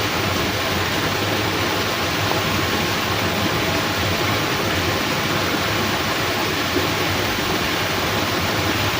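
Steady hiss of heavy rain and rushing water, even and unbroken.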